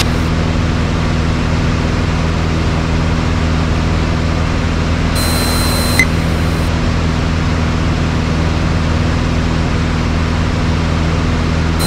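Single-engine light aircraft's piston engine and fixed-pitch propeller droning steadily in flight, heard inside the cockpit. A brief faint high tone and a single click come about six seconds in.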